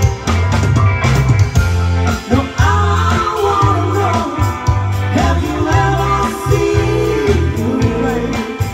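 Live pop-rock band playing: women singing lead over electric guitar, bass guitar, drums and keyboard, with a steady beat.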